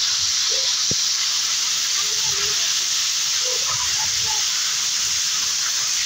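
Heavy rain falling steadily on a flat concrete rooftop, an even hiss of rain. A single sharp tick about a second in.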